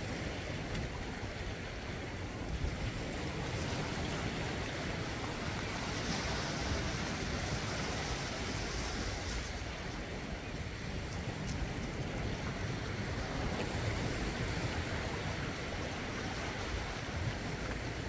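Small sea waves washing steadily over and around black volcanic rocks at the shoreline, a continuous swash with wind rumbling on the microphone.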